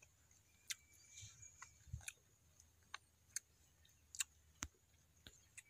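Near silence with about a dozen faint, irregular small clicks.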